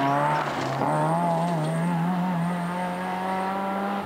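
Rally car engine revving hard as the car accelerates away out of a bend. The pitch drops briefly about a second in, then climbs slowly and holds high.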